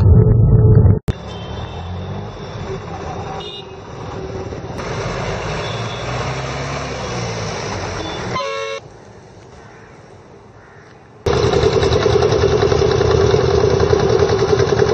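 Airliner cabin rumble, cut off suddenly about a second in, then street traffic with a bus or vehicle horn honking briefly a little past the middle. Near the end a ferry's engine runs with a steady hum.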